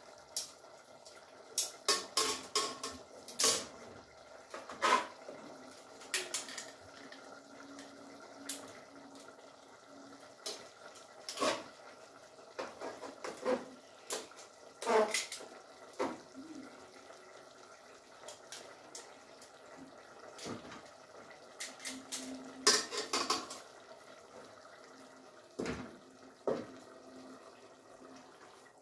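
Metal tongs clinking and knocking against cooking pots as cooked spaghetti is lifted and moved between them. The knocks are sharp and scattered, some in quick clusters, over a faint steady background hum.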